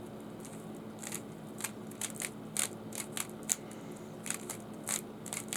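Plastic Rubik's Cube being twisted by hand: a quick, irregular series of short clicks and clacks as its layers turn.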